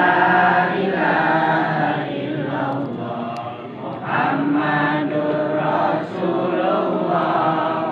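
A crowd of seated worshippers chanting prayers together in unison, in long held phrases with short breaks between them.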